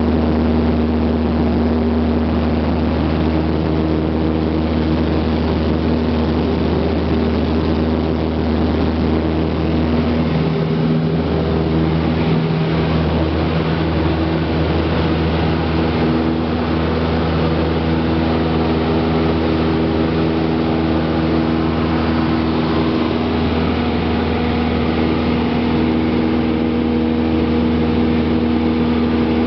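Cessna 172's piston engine and propeller running steadily at takeoff power through the takeoff and climb-out, heard inside the cabin as a loud, even drone.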